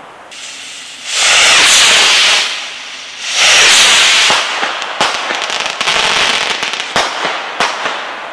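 Two small fireworks rockets launching one after the other, each with a loud rushing hiss lasting about a second, followed by several sharp bangs and crackling as their small ball-shell breaks burst, the loudest bangs about five and seven seconds in.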